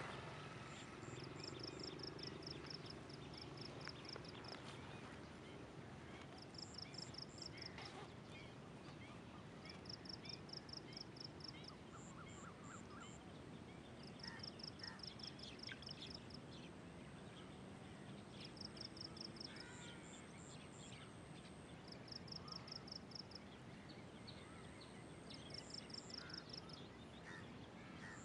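Rural field ambience at daybreak: a small animal calling in short bursts of rapid high-pitched ticks, each about a second long and repeated every few seconds, with faint scattered chirps over a low, even background noise.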